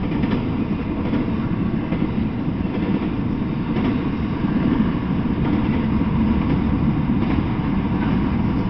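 Intermodal freight train passing close by: a steady rumble of steel wheels rolling on the rails, with a few faint clicks here and there.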